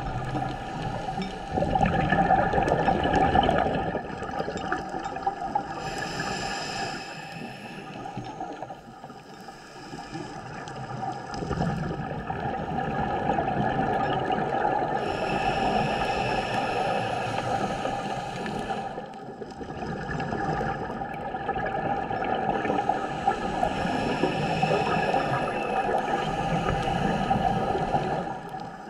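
Scuba regulator breathing heard underwater through a camera housing: bubbling, gurgling exhalations alternating with hissing breaths, three breath cycles.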